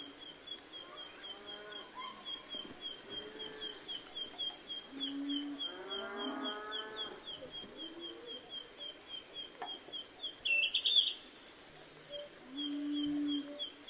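Farmyard ambience: a steady high chirping about four times a second, with cattle lowing now and then. A brief, louder high call comes about ten seconds in.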